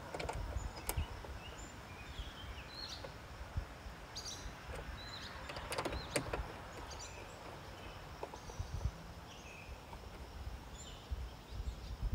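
Scattered small clicks and taps as a plastic amber turn-signal light is handled and fastened onto a truck cab by hand, the sharpest about a second in and near the middle. Birds chirp in short calls throughout, over a low steady rumble.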